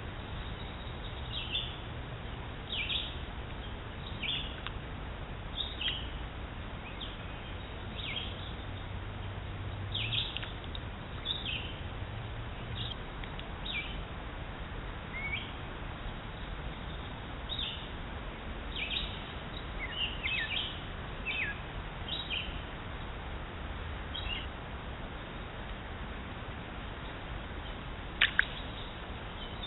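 Small birds chirping, short high calls at irregular intervals over a steady outdoor background hiss, with two louder sharp calls close together near the end.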